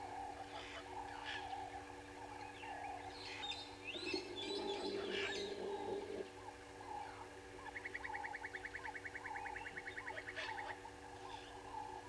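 Several wild birds calling in the bush: short repeated low notes throughout, a cluster of shrill calls about a third of the way in, and a fast, even trill of about ten notes a second near two-thirds through, over a faint steady hum.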